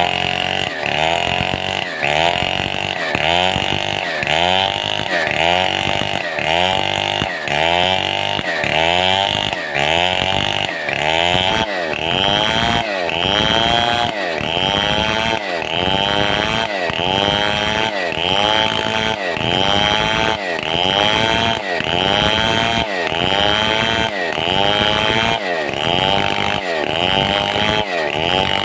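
Stihl 070 two-stroke chainsaw running under load, its engine pitch rising and falling in a steady rhythm about once or twice a second, a little slower from about halfway, as the saw is worked through a cut in milling beams.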